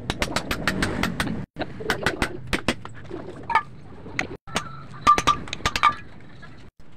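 Rapid hammer blows on a steel punch driving it through tyre rubber to cut out a bushing, several strikes a second. Some blows land with a clinking metallic ring off the steel wheel used as an anvil.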